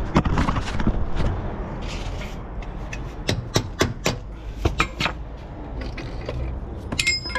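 Irregular metal clicks and knocks from hand tools working at a van's front wheel hub and brake disc, with a short ringing metallic clink near the end over a low steady rumble.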